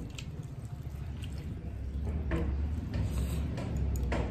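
Wet squelching and smacking as hands mix rice with dal and curry and the eaters chew, with a few short sharp clicks about two seconds in and near the end, over a steady low hum.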